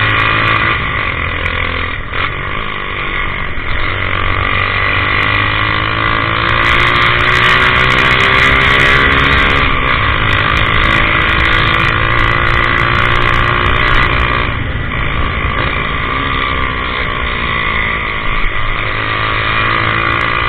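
Honda CG 150 single-cylinder four-stroke engine running loud through a modified dual 2-in-1 exhaust while riding, its pitch climbing and dropping several times as it accelerates and eases off through the gears.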